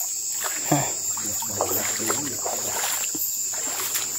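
Water sloshing and splashing in irregular bursts over a steady high drone of night insects such as crickets.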